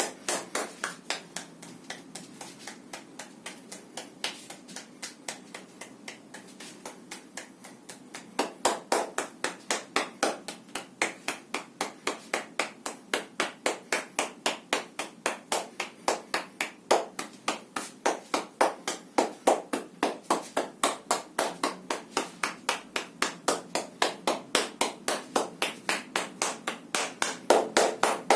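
Hands striking the body in percussive massage, an even run of slaps at about three a second. They are softer at first and grow louder about eight seconds in.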